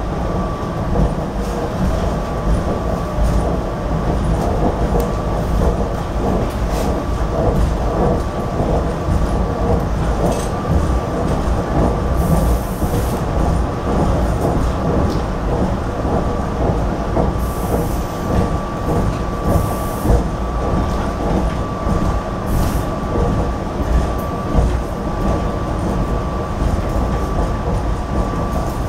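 Interior ride noise of a GE Silverliner IV electric multiple-unit commuter car running at speed. A steady low rumble of wheels on rail is broken by scattered sharp clacks, with a thin high whine running through much of it.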